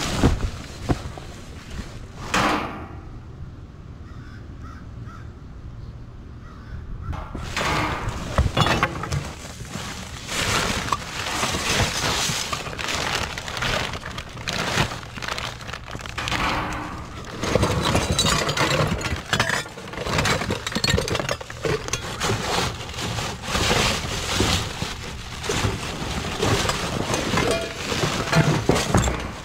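Hands rummaging through trash in a dumpster: plastic bags, cardboard boxes and crinkled paper packing rustling and crackling, with knocks and clatters of items being moved. There are a few knocks at the start and a quieter few seconds, then steady busy rustling from about seven seconds in.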